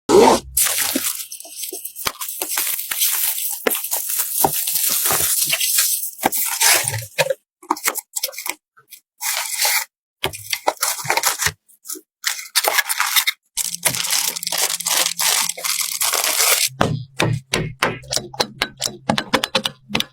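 Computer parts and their packaging being handled during a PC build: plastic wrap and packing crinkling and tearing, with clicks and snaps of components, in short bursts broken by abrupt cuts.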